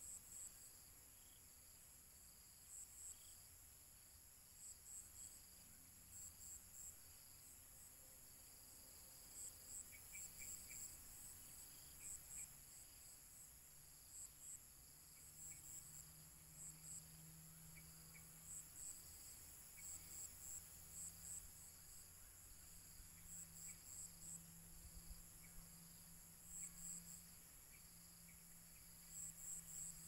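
Crickets chirping faintly: a steady high trill with louder chirps in short groups of two to four pulses, repeating every second or two.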